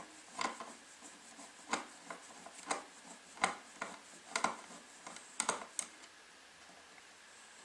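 Irregular sharp clicks and knocks of plastic wall-box parts being handled and worked loose, about eight in the first six seconds, then stopping.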